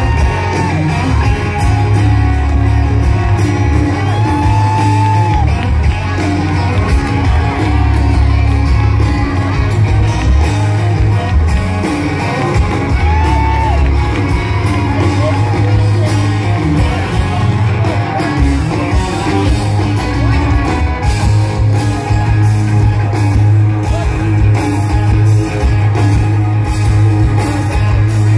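Live country band playing amplified drums and electric guitars with a singer, loud and with heavy bass.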